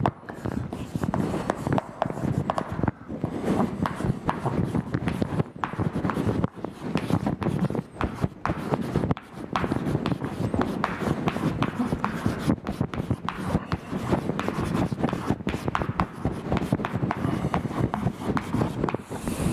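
Chalk writing on a blackboard: a rapid, irregular run of chalk taps and scratches as a line of text is written.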